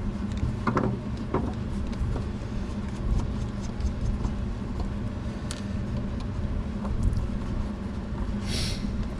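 Steady low mechanical hum, with a few light clicks and a brief hiss from small parts being handled on the bench.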